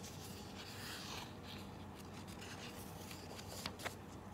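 Soft rustling and brushing of paper as the pages of a hardcover picture book are turned by hand, with a couple of light clicks near the end.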